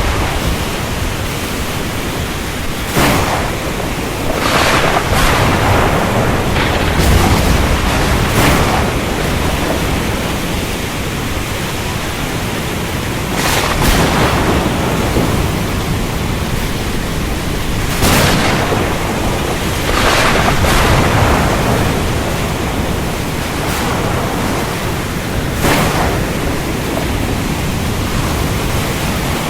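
Steady heavy rain hiss, broken by several brief crackles and swells of thunder, with a low rumble early on.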